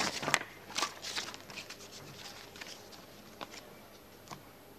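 Quiet room tone during a pause in speech, with a few faint short clicks.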